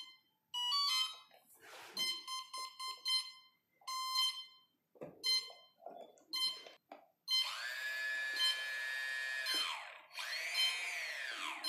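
Brushless drone motor playing its ESC's short beep tones at throttle zero, the ESC confirming throttle calibration. About seven seconds in the motor spins up with a steady whine for about two seconds, then its pitch rises and falls twice as throttle is opened and closed.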